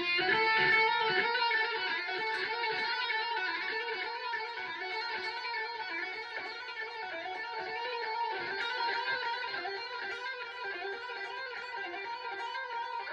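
Electric guitar playing a fast, continuous shred lick of hammer-ons and pull-offs on two strings, the notes repeating in a rapid legato run.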